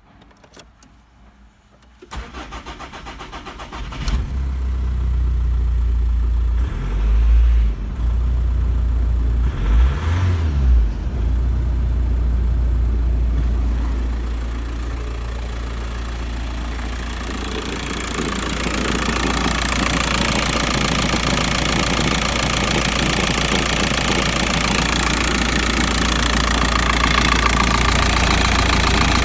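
Volkswagen Passat B5 1.9 TDI (AVF) four-cylinder turbodiesel cranks and starts about two seconds in, then idles, its note rising briefly twice. From about eighteen seconds in it is heard close up from the engine bay, with louder diesel clatter.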